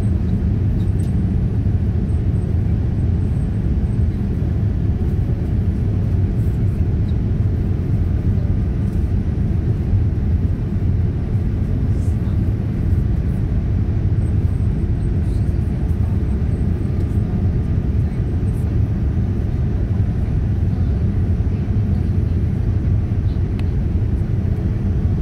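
Steady low cabin rumble inside a Boeing 787-9 airliner on its descent: engine and airflow noise heard from a window seat, even in level with no changes.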